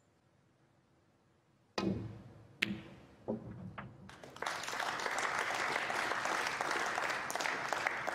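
A few sharp clicks of snooker balls being struck and knocking together, then an audience applauding steadily for the rest.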